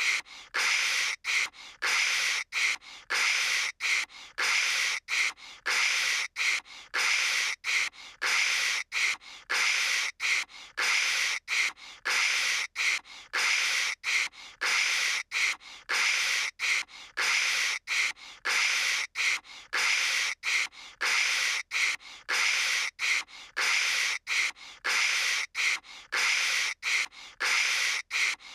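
A voice imitating phone-line static with the mouth: a fast, unbroken run of short hissing 'kshh' bursts, several a second, with brief gaps between them.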